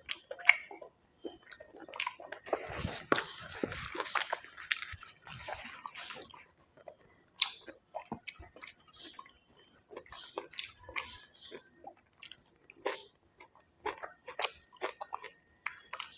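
A person chewing and biting food close to the microphone, with irregular crisp crunching clicks and a denser stretch of chewing noise a few seconds in.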